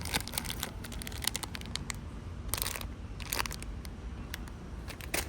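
Plastic grocery bags or packaging crinkling as they are handled, in irregular bursts of rustling and crackling.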